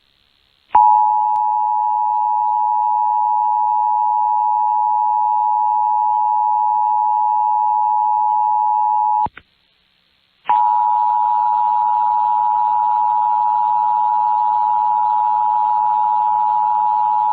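Emergency Alert System attention signal on FM radio: a loud steady tone that sounds for about eight seconds, breaks off briefly, then sounds again for about eight seconds, with a faint hiss under the second stretch. It announces the alert message that follows.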